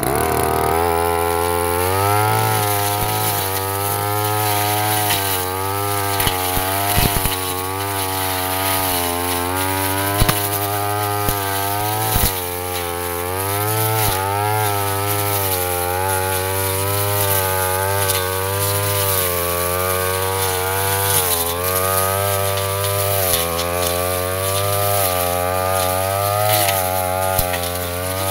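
Yasuka petrol brush cutter running hard, its engine pitch dipping and recovering every second or two as the blade is loaded by dense ferns, with a few sharp clicks along the way.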